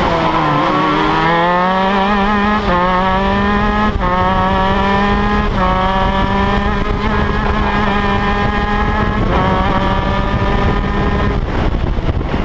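Shifter kart's two-stroke engine heard onboard under hard acceleration. Its pitch dips near the start, then climbs, dropping back a step with each upshift about three, four, five and a half and nine seconds in, and falls off near the end.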